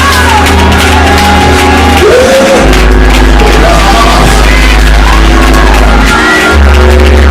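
Church praise-break music: long held chords over deep bass notes that change twice, with voices shouting and singing over the top.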